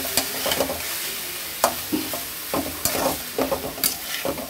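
Minced meat and vegetables sizzling in a metal kadhai while a spatula stirs them, with a steady frying hiss and several sharp scrapes and knocks of the spatula against the pan.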